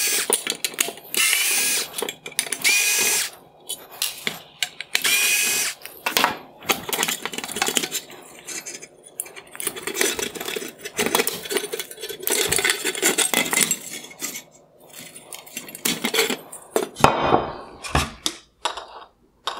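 Cordless electric screwdriver running out T20 Torx screws from a headlight's aluminium LED drive unit in four short whirring runs over the first six seconds. After that, plastic and metal parts click and rattle as the unit is pulled free and the housing handled.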